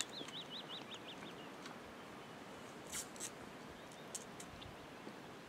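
A small bird singing a short run of quick, wavering whistled notes in the first second and a half over quiet open-air background, followed by a few faint high ticks.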